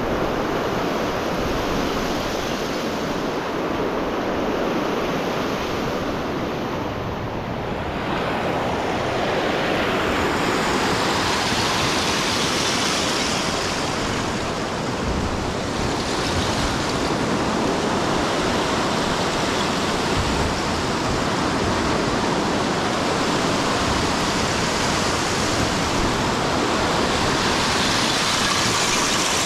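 Lake Michigan waves rushing and washing against the jetty, mixed with wind, a steady roar of noise that swells twice, about a third of the way in and again near the end.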